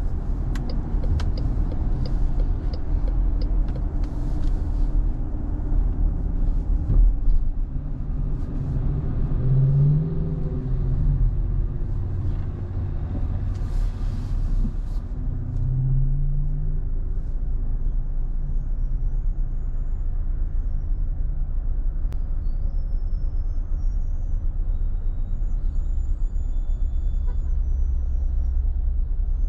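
Car driving in city traffic: a steady engine and tyre rumble, with scattered clicks over the first several seconds and a short hiss about 14 seconds in.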